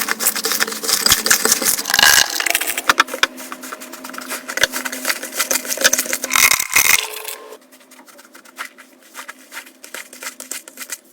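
Slime being squeezed and worked by hand, making dense, rapid crackling and popping clicks. About seven seconds in, it drops to quieter, sparser clicks.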